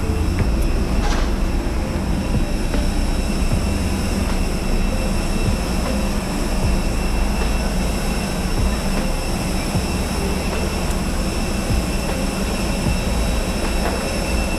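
Steady loud roar of a jet airliner's engines, with a few high whining tones held throughout, as the plane sits or taxis after landing.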